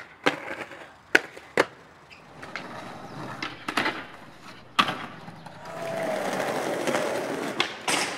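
Skateboard tricks: several sharp pops and landings of the board, with wheels rolling between them. In the second half comes a long scraping grind or slide that ends in a sharp knock.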